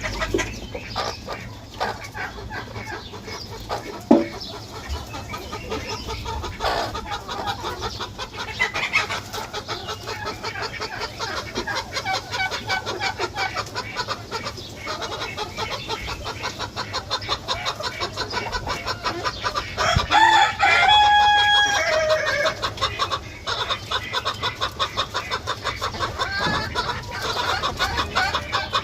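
A flock of chickens clucking continuously. A rooster crows once, for about two seconds, about two-thirds of the way through.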